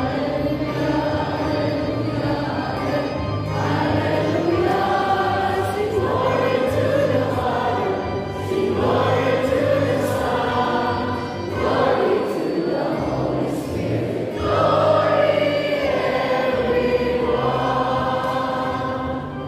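Church choir singing a hymn: phrases of long held notes that glide from pitch to pitch, with short breaks between phrases.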